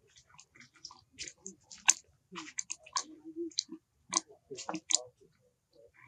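Baby macaque eating fruit: irregular short clicks and smacks of biting and chewing.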